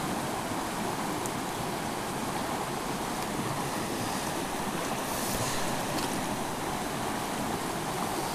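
Small mountain creek rushing steadily over a rocky riffle.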